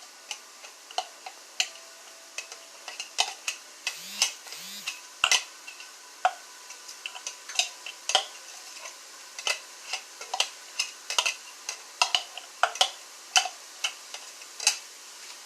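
A spoon stirring and chopping up ground turkey in a frying pan: irregular scrapes and clicks against the pan, over a faint sizzle.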